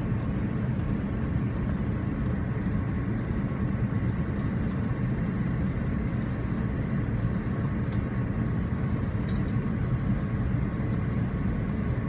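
Steady cabin noise of an Airbus A350 on final approach: an even, low rumble of its Rolls-Royce Trent XWB engines and the airflow, with a faint steady tone above it.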